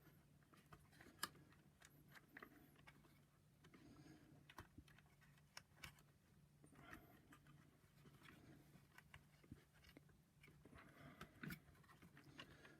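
Near silence: faint scattered clicks and rustles of wires and small plastic parts being handled, with one sharper click about a second in, over a faint low steady hum.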